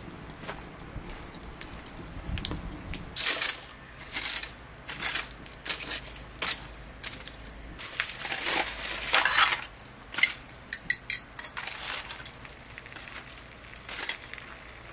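Aluminium foil crinkling and a metal pan and tongs scraping and clinking as the foil-covered pan is pushed into a wood-fired brick oven. The sound comes as a string of short scrapes and rustles, with a quick run of small clicks about ten to eleven seconds in.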